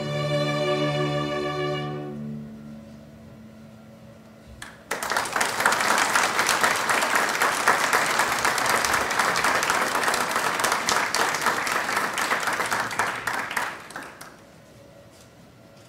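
A chamber string orchestra of violins and cellos holds a final chord that dies away over the first two seconds. After a short silence the audience claps for about nine seconds, then the applause stops.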